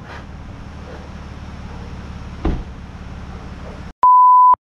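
Steady vehicle running and road noise with a single knock about halfway through. Near the end it cuts to silence, and a loud electronic beep sounds at one steady pitch for about half a second.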